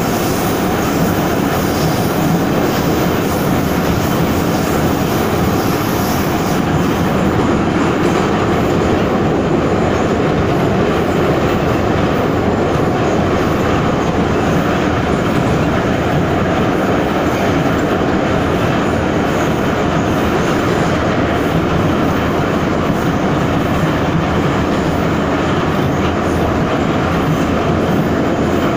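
Ezh3 (81-710) metro car running through a tunnel, heard from inside the car: a loud, steady rumble of wheels and running gear on the rails.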